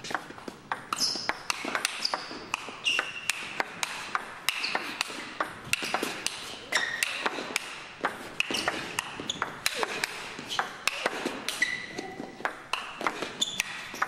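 A long table tennis rally: the ball clicks sharply off the rackets and the table in quick alternation, several hits a second, with short high squeaks of the players' shoes on the court floor in between.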